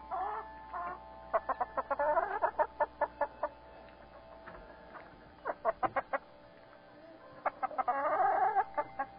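Domestic hens clucking: quick runs of short clucks in three bursts, with quieter gaps between them.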